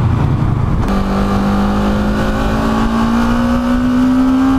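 Motorcycle engine under way with wind rush. About a second in, the revs step up suddenly, then climb slowly and steadily as the bike accelerates.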